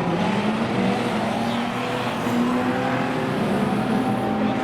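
Several banger racing cars' engines running together, their pitches overlapping and rising and falling.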